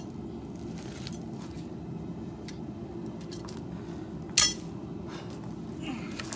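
Metal clinks and light knocks of steel and tools being handled, with one loud, sharp metallic clank about four seconds in, over a steady low rumble.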